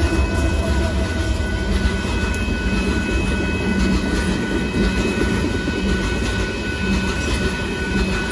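Loaded open-top hopper cars of a Union Pacific limestone train rolling past: a steady rumble of wheels on rail, with a faint steady high ringing tone held over it.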